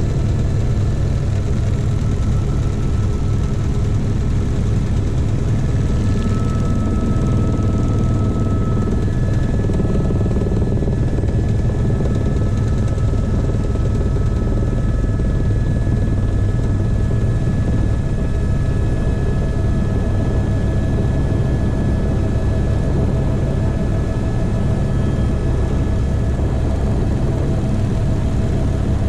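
Helicopter in flight heard from inside the cabin: a steady, loud rotor and engine drone with thin, steady high whines over it.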